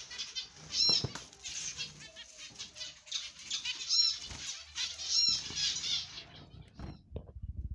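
Small cage birds fluttering their wings, with short repeated chirps; the flapping stops about six seconds in.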